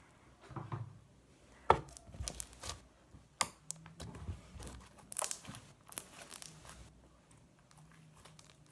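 Glossy homemade slime being stretched and squished by hand, giving irregular sticky crackles and tearing sounds.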